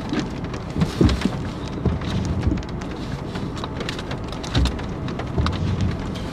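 Rain falling on the car's roof and windows, heard from inside the car: a steady hiss full of small drop ticks, with a few soft low thumps.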